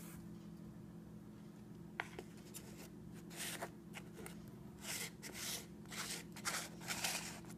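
Handling noise of a clear plastic deli cup being picked up and moved about on a tabletop: a single click about two seconds in, then a run of short rustling scrapes. A faint steady low hum lies underneath.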